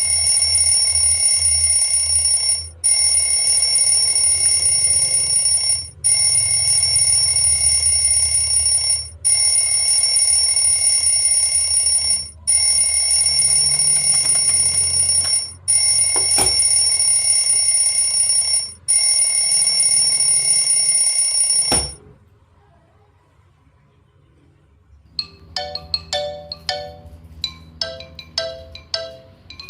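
Shrill electronic ringer sounding a steady high-pitched tone in blocks of about three seconds, seven times with short breaks, then stopping. A few seconds later a melodic phone ringtone of short marimba-like notes starts up.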